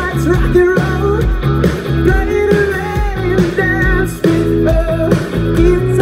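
Live rock band playing: a lead voice singing over electric guitar, bass guitar and drums.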